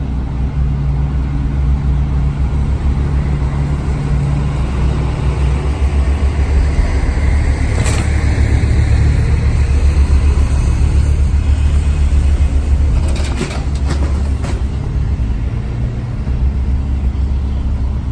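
A large engine running steadily with a low rumble at a house demolition. It swells a little in the middle, and about thirteen seconds in there is a short run of sharp knocks and clatter.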